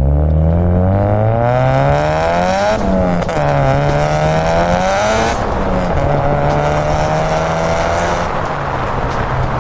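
Turbocharged 4G15 Mivec four-cylinder engine of a Mitsubishi Lancer accelerating hard through the open exhaust cutout's side exit. It revs up for about three seconds, shifts, revs up again until about five seconds in, then drops back and holds a steady note.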